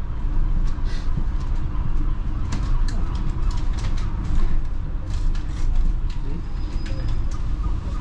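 Double-decker bus running through city traffic, heard from the upper deck: a steady low engine and road rumble. A scatter of brief high chirps rides over it, with one short held high note about seven seconds in.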